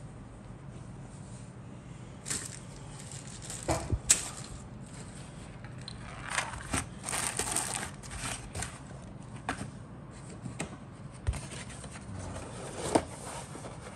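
A cardboard model-kit box and its clear plastic bag being handled and set on a cutting mat: plastic crinkling, scraping and a few sharp knocks, the loudest about four seconds in and near the end.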